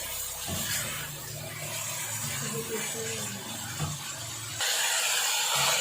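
Chicken pieces deep-frying in hot oil in a karahi, a steady sizzling hiss that gets louder about four and a half seconds in.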